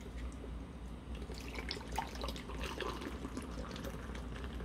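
Beer poured from a can into a glass mug, splashing and fizzing as it fills, starting about a second in.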